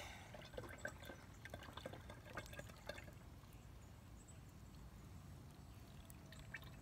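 Used engine oil pouring from a drain pan through a plastic funnel into a plastic oil jug: a faint trickle with scattered drips, busier in the first few seconds and again near the end.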